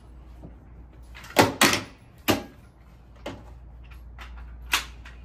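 Gunshots at an outdoor firing range: five sharp reports with brief echo, the first two in quick succession and the fourth fainter.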